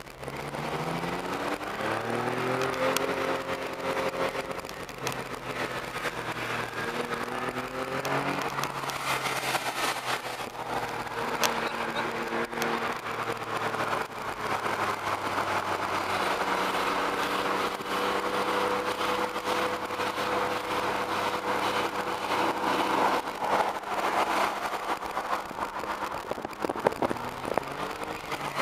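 Car engine accelerating, its pitch rising over the first few seconds and again about eight seconds in, then running steadily, heard from inside a small car's cabin with road and wind noise.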